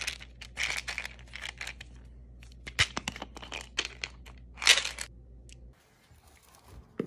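Close-up rustling, crinkling and scraping handling noise, a string of short irregular scrapes, as a plastic supplement bottle is picked up and turned in the hand; it cuts off abruptly near the end.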